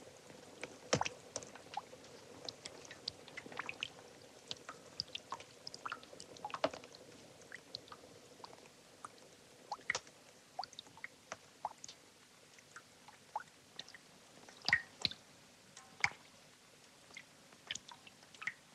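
Faint, irregular small pops and snaps of a wood fire crackling in an iron stove, with water drops dripping from a hand.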